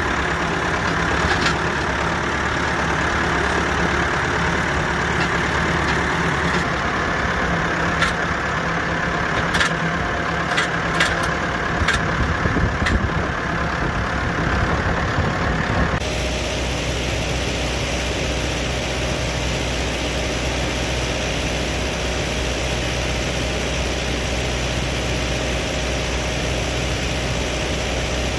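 Farm tractor engine running steadily while pulling a forage wagon, with a few sharp knocks and rattles in the first half. About halfway through, the engine sound changes abruptly to a lower, steadier hum.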